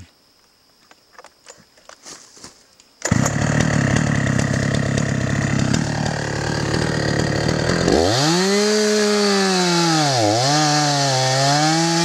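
Two-stroke chainsaw starts suddenly about three seconds in and runs steadily at idle, then revs up near eight seconds. Its pitch dips twice as it bites into the Hovenia dulcis trunk being cut.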